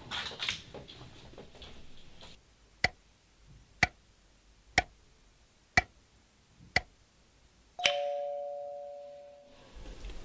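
A series of five sharp clicks, about one a second, then a single bell-like ding that rings and fades over about two seconds, after some faint rustling.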